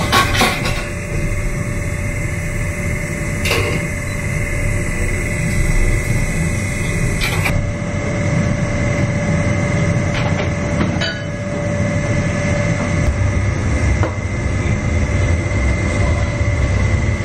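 Steady low rumble of commercial kitchen equipment, with a faint steady hum tone above it. A few light clicks, like utensils or a steel bowl being knocked, come through it.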